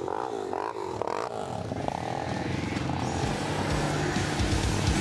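Engine of a 1985 Honda ATC250SX three-wheeler revving up and down, heard from its seat. From about two seconds in, rock music with electric guitar fades in over it and grows louder.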